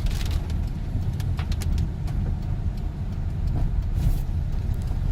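Car driving, heard from inside the cabin: a steady low engine and road rumble, with a few short clicks near the start.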